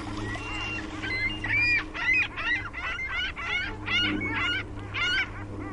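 Geese honking: a rapid run of about ten loud calls starting about a second in, over a steady low hum.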